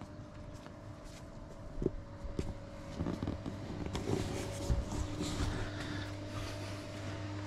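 Outdoor ambience: a steady low mechanical hum, with wind rustle and gusting growing louder about halfway through.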